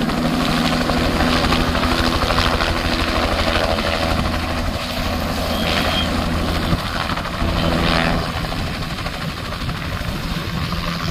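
Helicopter running close by: rapid rotor-blade chop over a steady engine hum.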